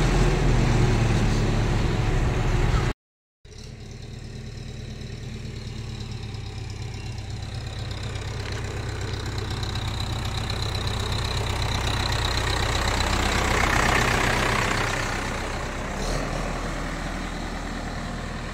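Diesel engine of a Case backhoe loader running as it drives, loud and steady from inside the cab. After a short break in the sound about three seconds in, it is heard from outside, growing steadily louder as the machine approaches and passes, then easing off a little near the end.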